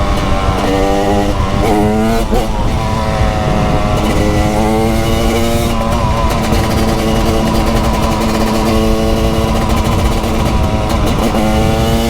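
TM SMR 300's 300cc single-cylinder two-stroke engine under way, revving up through several quick climbs in pitch with gear changes, settling and easing off, then pulling up again near the end.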